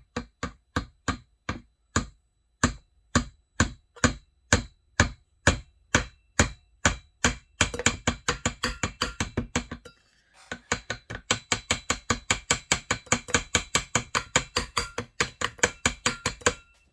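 Hammer striking metal over and over, about three blows a second at first, then quicker after about eight seconds, with a brief pause near ten seconds before a faster run that stops just before the end.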